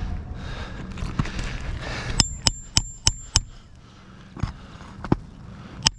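Hammer driving roofing nails back into asphalt shingles. After a couple of seconds of rustling come five quick, ringing metal strikes, about three a second, then two duller knocks and another ringing strike near the end.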